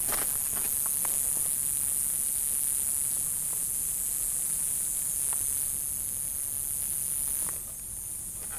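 A steady high-pitched buzz from an unseen creature in the desert scrub, which the hiker hopes is not a rattlesnake; it drops in level near the end. A few footsteps crunch on rocky ground in the first second or so.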